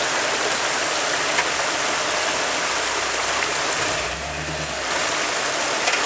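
Creek water rushing and splashing over rocks in a small cascade close by, a steady, dense hiss.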